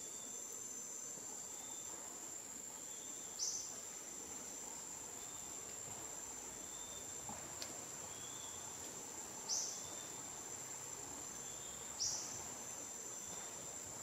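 Rainforest insects making a steady high-pitched drone, with a faint short note repeating about once a second. Three short, sharp chirps that fall in pitch stand out: one about three seconds in and two more later, a few seconds apart.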